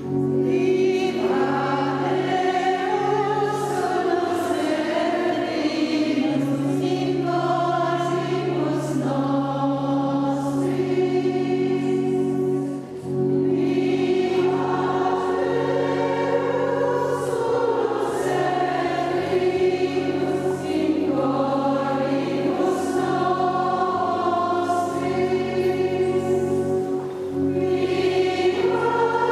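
Choir singing a hymn, with held low notes sounding beneath the voices.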